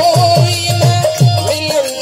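Bhajan music: a harmonium holding notes over a hand drum's quick bass strokes, each dropping in pitch, with small cymbals jingling on top. The drum strokes stop shortly before the end.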